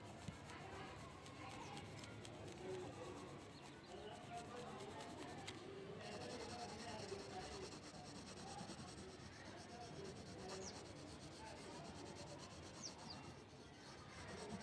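Faint, continuous rubbing of a drawing tool on paper as white is shaded over the dark lower part of the drawing.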